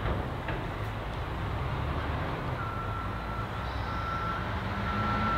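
Steady low rumble of a running vehicle engine, and from about halfway through a high single-pitched beep repeating about once a second, the pattern of a vehicle's reversing alarm.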